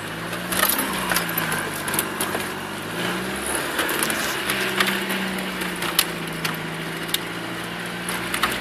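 Land Rover Discovery Tdi turbodiesel engine pulling at low revs, rising and falling a few times and then holding steady, as the vehicle lurches over a rocky track. Frequent sharp knocks and creaks come from the body and suspension.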